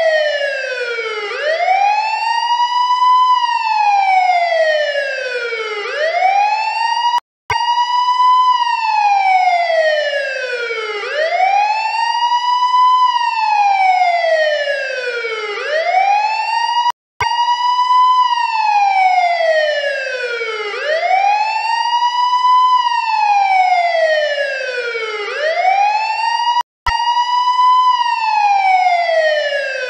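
Electronic wail siren sounding a fire evacuation alarm, its pitch sliding down and then sweeping back up about every five seconds. It cuts out for an instant three times.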